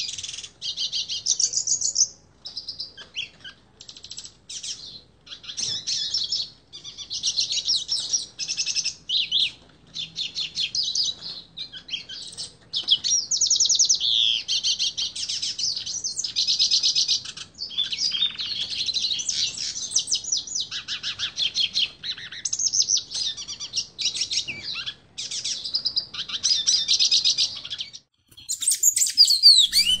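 Yellow-faced siskin (pintassilgo-do-nordeste) singing: a long run of rapid, high twittering phrases broken by short pauses, stopping near the end.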